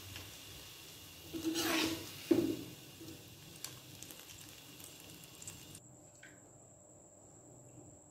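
A metal serving spoon scraping against the cookware twice, about a second and a half in, over a faint steady hiss.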